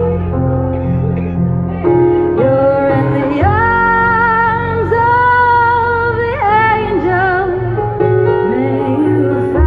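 A woman singing a slow song live into a handheld microphone over an instrumental accompaniment, holding long notes with vibrato, the longest in the middle.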